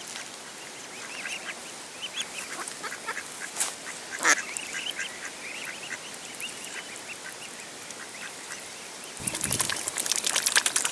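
Mute swan cygnets peeping in short, high calls as they feed on the water, with a sharp click about four seconds in. From about nine seconds the adult swan dabbles and splashes with her bill at the surface, the loudest part.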